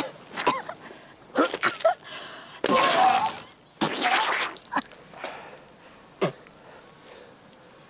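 A young woman choking on effervescent vitamin C tablets chewed dry. Strained gasps and throaty noises come first, then two harsh coughing or retching bursts about three and four seconds in, easing to quieter breathing.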